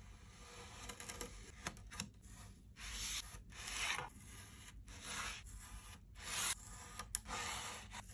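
Knife and plastic fork scraping and cutting through kinetic sand: a series of short, grainy rubbing strokes. The strokes start about three seconds in and come several in a row, with short gaps between them.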